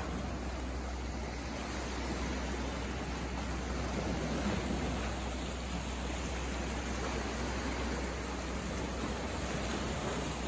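Calm sea water washing gently around shoreline rocks: a steady, even wash with a low rumble underneath.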